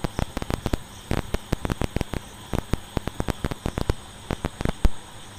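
Irregular, rapid clicks and taps, several a second, from drawing on screen, over a steady electrical hum and hiss.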